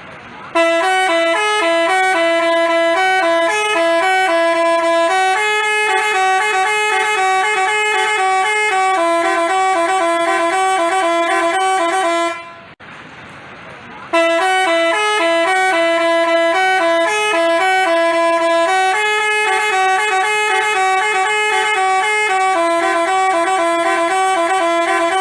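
Telolet basuri multi-tone bus horn playing a tune of stepping, held notes, sounding in two voices at once. The tune runs for about twelve seconds, breaks off briefly near the middle, then starts again.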